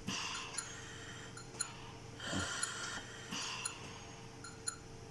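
Siemens Servo 300 mechanical ventilator cycling breaths at a set 400 ml tidal volume: three hissing rushes of gas through the breathing circuit, with light valve clicks, over a faint steady hum.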